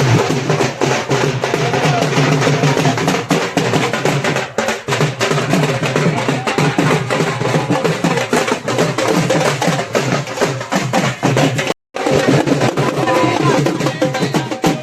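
Music with busy, driving drum and percussion strokes, loud throughout; the sound cuts out for a moment about twelve seconds in.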